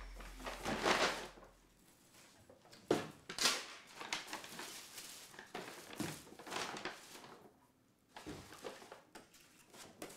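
Brown paper grocery bag rustling and crinkling in irregular bursts as groceries are unpacked from it, including a plastic-wrapped loaf of bread.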